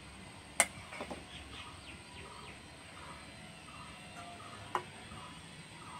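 A hand-held mesh flour sieve tapping and scraping against a steel bowl as flour is sifted, with a sharp click about half a second in and another near the end. Faint bird chirps repeat in the background.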